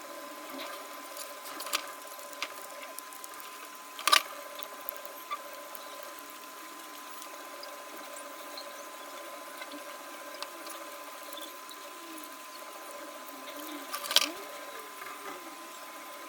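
Quiet handling noises as a cured silicone patch is peeled off its mould: scattered small clicks and two sharper knocks, about 4 seconds and 14 seconds in, over a steady high-pitched hum.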